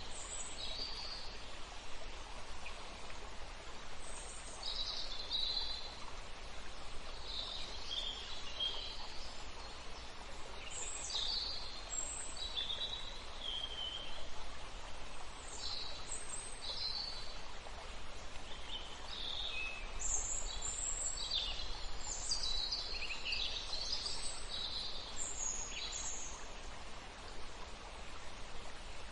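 Several small birds chirping and calling, short high notes every second or so, over a steady outdoor hiss.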